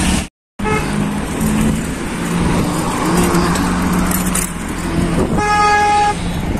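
Road traffic heard from a moving bicycle: steady road noise with vehicle engines humming. The sound cuts out for half a second near the start. A vehicle horn beeps briefly just after that, and honks again, longer and louder, near the end.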